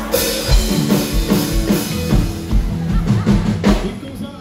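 Live band playing, drum kit to the fore: kick drum thumping about twice a second under a moving bass line and the rest of the band. The music drops in level near the end.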